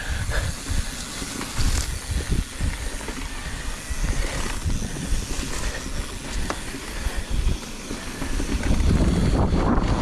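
Electric mountain bike riding down a rough dirt trail: tyres rolling over the ground and the bike jolting and rattling over bumps, under a steady hiss.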